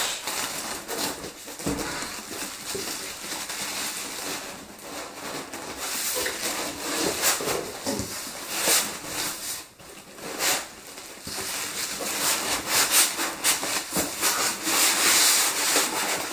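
Clear plastic bag and cardboard packaging crinkling and rustling as a boxed computer case is unpacked by hand. The crackling comes and goes, loudest in the last few seconds.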